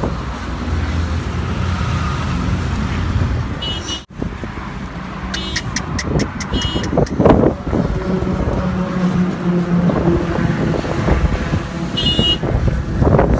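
Highway traffic passing: steady engine and road rumble from cars and trucks, with a few short high-pitched sounds scattered through it.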